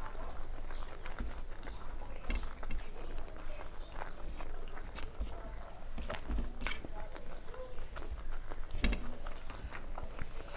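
Close-up eating sounds of someone eating rice and fish curry: irregular wet clicks and smacks of chewing, with a few louder smacks.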